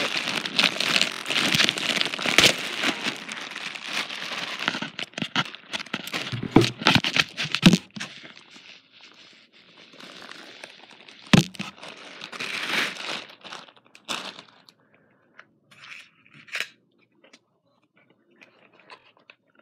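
Crinkling, rustling handling noise of packaging and the phone, with many small clicks for the first several seconds. A sharp knock comes about eleven seconds in, then a short burst of rustling, then only faint occasional rustles.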